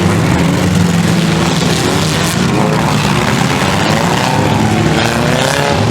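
Demolition derby car engines running hard at full throttle, with one engine's pitch climbing as it revs up near the end.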